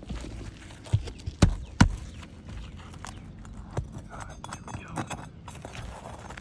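Nails being pried out of an asphalt roof shingle with a metal tool: scattered clicks and scraping, with three sharp knocks between about one and two seconds in.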